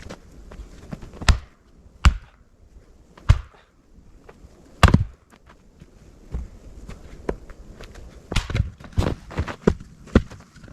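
Chopping blows struck one at a time: four sharp strikes in the first five seconds, then a quick run of lighter knocks and taps near the end.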